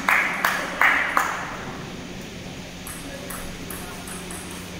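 Table tennis ball bouncing on a hard surface, sharp clicks about 0.4 s apart, four of them, stopping a little over a second in. A few faint ticks follow.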